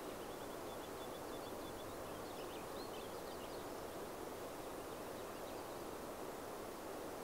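Steady outdoor background hiss, with faint, high bird chirps scattered through the first half.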